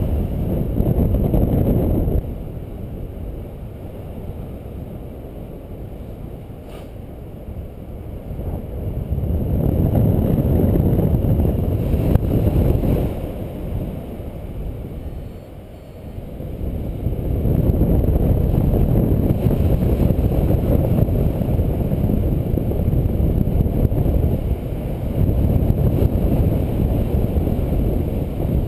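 Wind rushing over a GoPro camera's microphone on a paraglider in flight: a low rumble that eases off after a couple of seconds, builds back up, dips once more a little past the middle, then stays strong.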